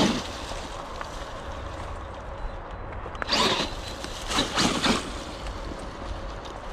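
Wind rumbling on the microphone, with two short rushes of noise about three and four and a half seconds in.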